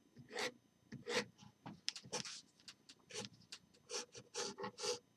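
A pen drawing quick short lines on paper: about fifteen brief, scratchy strokes, one after another.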